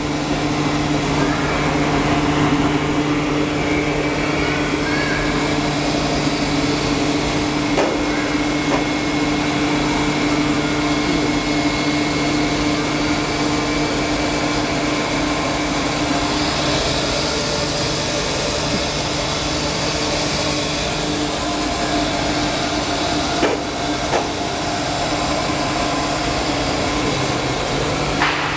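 Horizontal foam splitting machine running steadily while it splits polyethylene (PE) foam sheet, its electric motor and feed rollers giving a constant hum with a steady low tone. A few light knocks break in now and then.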